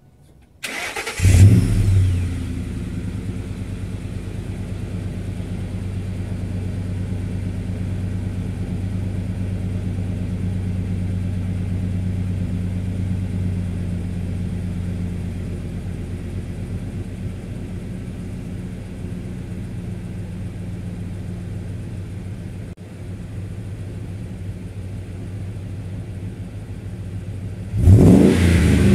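A 2003 Ford Expedition's 5.4-litre V8 cranks briefly and catches with a flare of revs, then settles into a steady idle through a stainless straight-through offset muffler. Near the end the throttle is blipped and the engine revs up.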